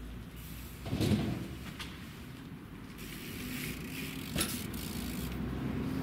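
BMX bike riding off a shed roof: a heavy thump about a second in, then one sharp landing impact as it comes down onto the grass, with the bike rolling on afterwards.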